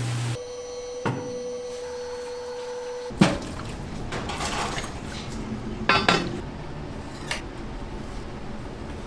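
Kitchen dishes and utensils clattering, with a few sharp knocks; the loudest comes about three seconds in. A steady hum runs under the first three seconds.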